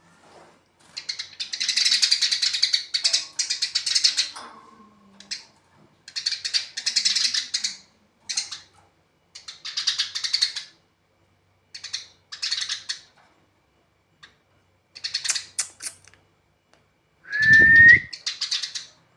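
Eurasian tree sparrows fighting: repeated bursts of rapid, harsh chattering chirps with short pauses between them. Near the end comes one louder, slightly rising whistle with a low thump under it.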